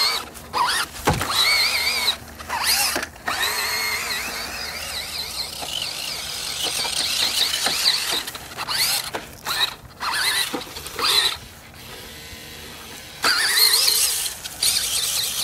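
Toy RC car's small electric motor whining, its pitch rising and falling as the car speeds up and slows, with a sharp rising whine near the end. Scattered short knocks run through it.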